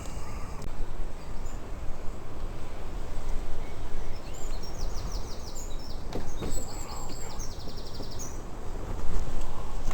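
A songbird singing two quick runs of high, rapidly repeated notes in the middle, over a steady low rumble of outdoor background noise.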